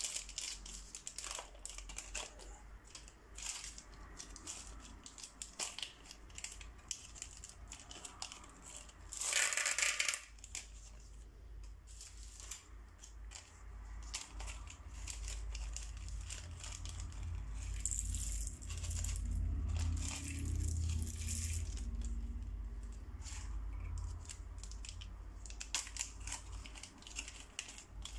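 Small clear plastic bags crinkling as they are handled and opened, with plastic beads clicking and spilling out of them, in many short bursts. About ten seconds in comes a louder rush of noise lasting about a second.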